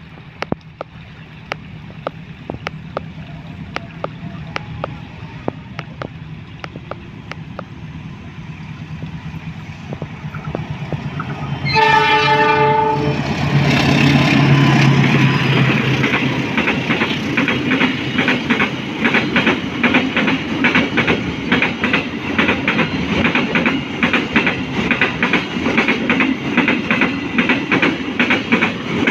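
KAI CC 206 diesel-electric freight locomotive approaching, its engine drone growing louder, sounding one short horn blast about twelve seconds in. It then passes loudly, and its tank wagons follow with a steady clickety-clack of wheels over the rail joints.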